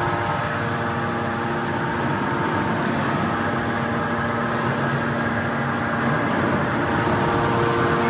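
Hydraulic power unit of a 500-ton scrap metal baler running with a steady hum, with a few faint clicks.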